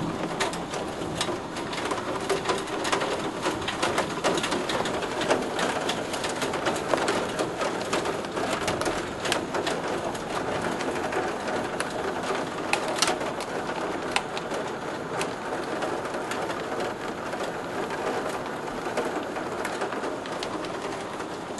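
Heavy downpour with hail, a steady hiss thick with quick ticks of drops and hailstones striking a window pane and sill.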